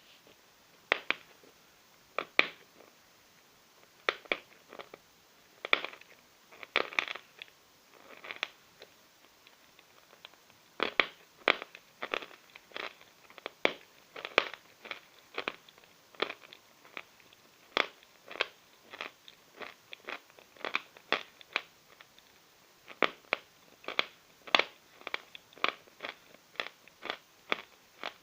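Chalk being bitten and chewed: sharp, dry crunches, scattered at first, then coming steadily about twice a second.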